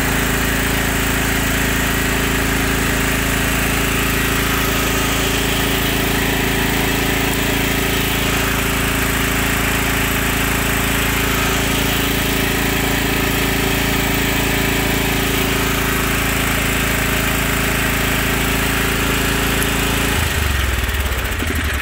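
Toro zero-turn mower's engine running steadily while the sprayer is pressurised; its even note breaks off near the end.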